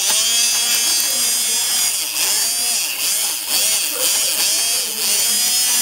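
Electric immersion blender running in a plastic tub of jelly syrup and sodium alginate, its motor note dipping and recovering several times as the mixture loads the blades.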